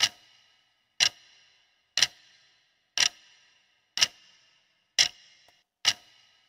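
Clock-tick sound effect of a quiz countdown timer, one sharp tick each second, seven in all, each with a short ringing tail, counting down the seconds left to answer.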